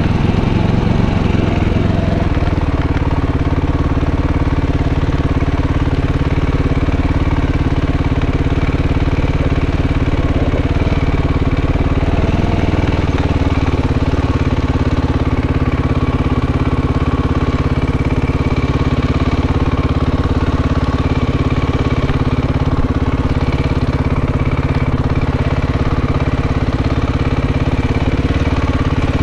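Dirt bike engine running at low, fairly steady revs, heard close up from a camera mounted on the bike. The engine note shifts slightly a couple of times as the throttle changes.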